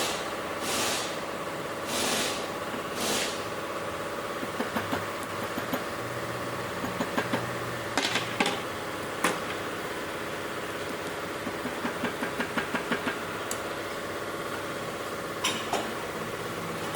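Car-repair workshop sounds during axle work on a car: a steady machine hum, three short hisses in the first few seconds, then scattered clicks and taps from tools, with a quick run of taps a little past the middle.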